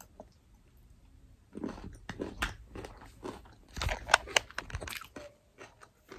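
Biting into and chewing a crisp baked corn tostada (Salmas with chia, flaxseed and rice): a run of sharp crunches that starts about a second and a half in, is loudest around four seconds in, and thins out near the end.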